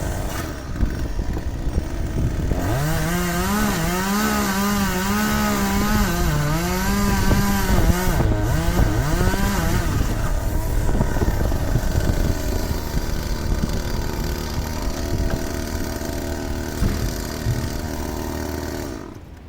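Gas chainsaw running over steady engine noise. About three seconds in, its engine note rises and dips over and over for several seconds, then falls back into the steady running; the sound drops away just before the end.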